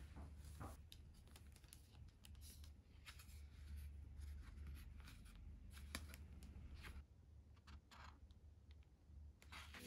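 Faint rustling and crinkling of tissue paper and a paper hang tag being handled, in scattered soft clicks over a steady low hum.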